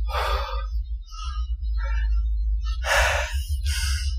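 Noise-reduced camera-microphone audio of a walk through forest undergrowth: a constant low rumble, with a few short rustling, crunching noises from the hiker's movement, at the start, about three seconds in, and near the end. The uploader takes the low rumble for Sasquatch sounds.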